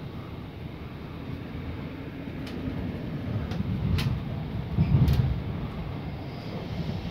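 Inside a moving passenger train: a steady low rumble of the wheels rolling on the track, with a few sharp clicks from the wheels on the rails, the loudest about five seconds in.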